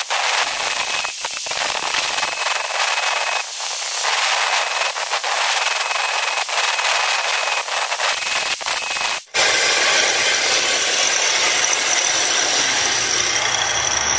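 Electric angle grinder running, its disc grinding down the steel laminations of a ceiling fan's stator core to widen the gap to the rotor, which they had been rubbing against. The sound breaks off abruptly about nine seconds in, then runs on steadily with a thin whine.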